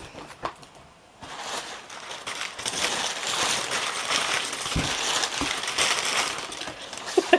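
Brown packing paper crumpled and rustled as it is pulled out of a parcel box: a few small crackles, then from about a second in a continuous loud crinkling.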